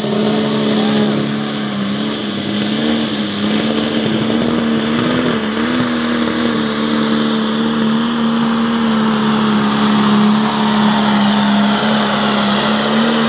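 Turbocharged diesel engine of a John Deere Pro Stock pulling tractor running flat out under load as it pulls the sled: a loud, steady drone whose pitch wavers only slightly.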